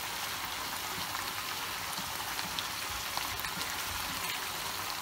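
Minced meat in a tomato and pepper sauce sizzling steadily in a frying pan, with scattered small pops, as a splash of water just added cooks off.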